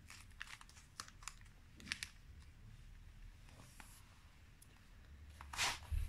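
Faint clicks and light crinkling of a small plastic parts bag as a small circuit board, cables and parts are handled and set down, with a louder rustle near the end.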